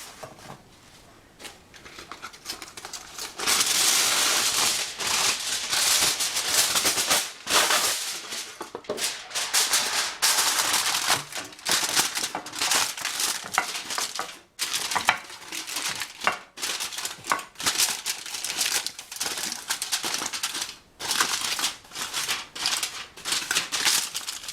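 Non-stick aluminium foil crinkling and crackling as it is handled and pressed in to line a baking pan, starting about three seconds in with many irregular crackles.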